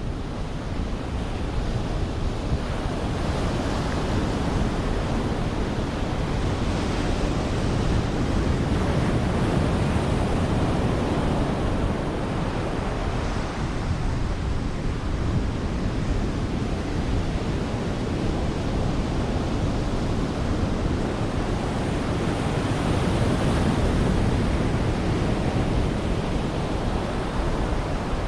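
Ocean surf washing onto a sandy beach, a steady hiss of breaking waves that swells louder twice, with wind on the microphone.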